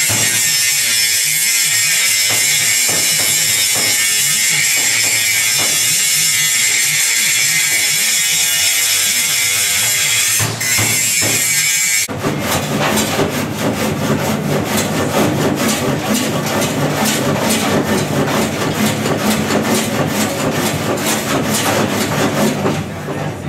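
A steady, harsh, high-pitched noise for about twelve seconds, then an abrupt switch to rock music with a steady beat.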